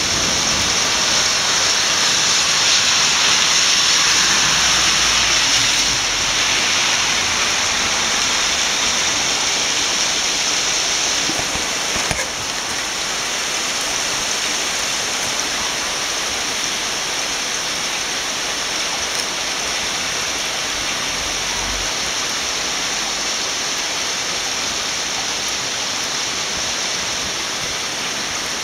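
Torrential downpour from a frontal thunderstorm, a steady heavy rush of rain, slightly louder for the first six seconds and then easing a little. A single brief knock sounds about twelve seconds in.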